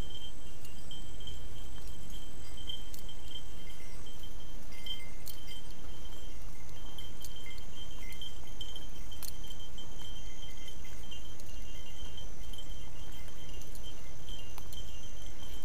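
Insects calling steadily in a high, slightly pulsing chorus, over a low steady rumble of wind on the microphone, with a few sharp clicks.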